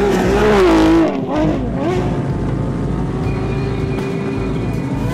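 Home-built mid-engine rally car's naturally aspirated 3.5-litre Renault Sport V6 being driven hard, its engine note rising and falling sharply in the first two seconds, loudest about a second in, then settling into a steadier, quieter note.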